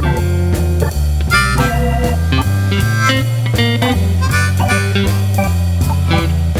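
Background music: a blues tune with guitar, bass and a harmonica-like lead over a steady beat.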